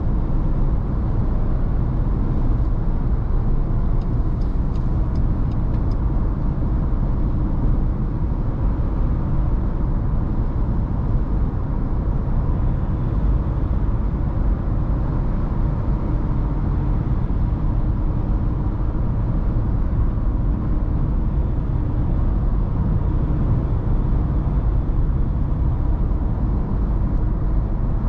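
Ford Ranger Raptor cruising at highway speed, heard inside the cabin: steady engine drone mixed with tyre and road rumble.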